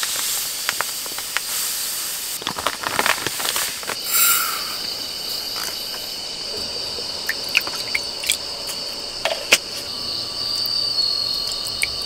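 Granulated sugar poured from a plastic bag into a glass measuring cup, a dry hissing rush with small clicks and bag rustles, then tipped from the cup into a stainless steel pot, with a few light clinks. A steady high-pitched tone runs underneath.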